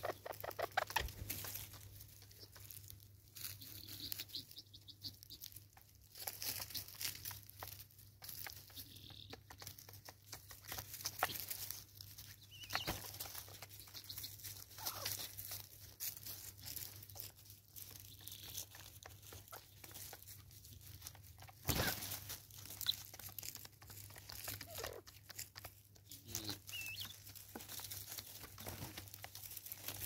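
Helmeted guineafowl and a spurfowl feeding on seed: irregular pecking taps on the wooden stumps and scratching rustles in dry leaves, with one louder knock about two-thirds of the way through. A faint steady low hum runs underneath.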